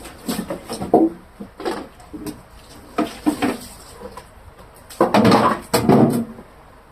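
Scattered knocks and clatter of plastic refrigerator shelves and bins being handled and washed, with a louder rush of scrubbing or handling noise about five seconds in.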